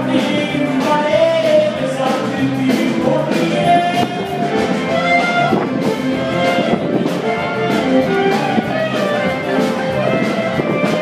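Upbeat music with a singer and a steady drum beat.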